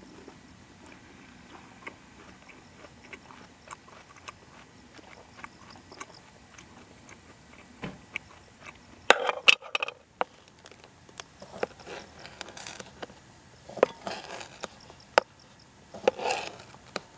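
A run of loud, close crunching and clicking sounds starts about halfway in. Near the end, a knife cuts through sausage and taps against a plastic cutting board in sharp strokes.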